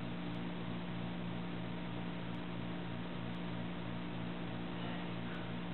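Steady low electrical hum with an even hiss behind it, unchanging throughout: workshop room tone.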